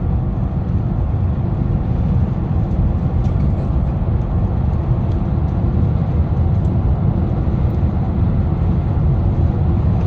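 Steady low rumble of engine and tyre noise heard inside a car's cabin while it cruises at motorway speed.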